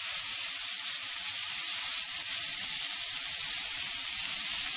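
Chopped onions and ginger frying in hot oil in a pan, a steady sizzle, as the onions are sautéed toward browning.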